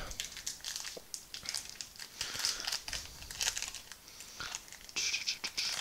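Foil wrapper of a Magic: The Gathering booster pack being torn open and crinkled by hand: a run of crisp crackles and rustles, loudest near the end.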